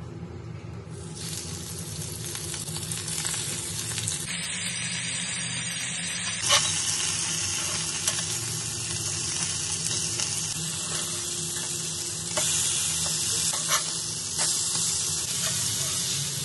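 Semolina-coated pomfret sizzling as it shallow-fries in oil on a flat tawa, with a few sharp clicks of a spatula against the pan.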